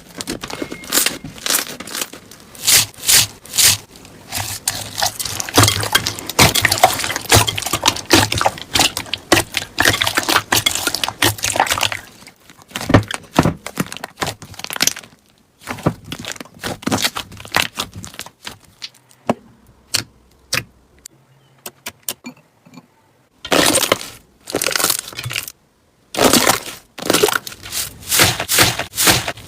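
Slime being squeezed and poked by hand, giving dense crackling and popping with many quick clicks. It thins out to a few scattered clicks about two thirds of the way through, then starts up again abruptly.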